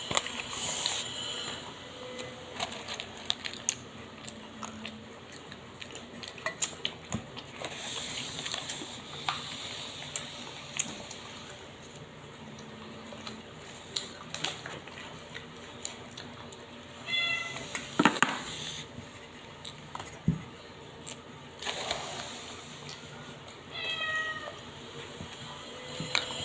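A cat meowing a few times, most clearly twice in the second half, over scattered sharp clicks and crunches of garlic peanuts being eaten and handled in a plastic cup.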